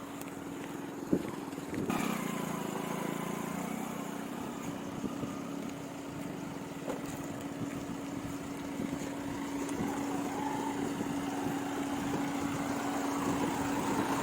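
Fiat Punto Evo's engine running at a steady, held note under rough noise that swells about two seconds in. A single sharp knock comes about a second in.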